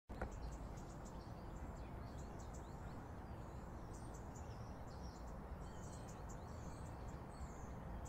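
Birds chirping and calling in many short, high notes over a steady low background rumble, with a brief click at the very start.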